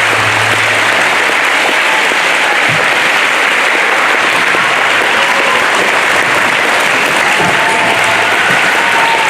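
Audience applauding steadily after a song, a dense clapping of many hands with no break. A faint low hum under it dies away early on.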